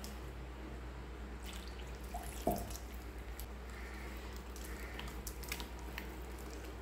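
Hand squeezing and mixing a thick, wet maida batter of flour, egg and coconut milk in a glass bowl, giving scattered wet squelches and small clicks, with one louder short sound about two and a half seconds in. A steady low hum runs underneath.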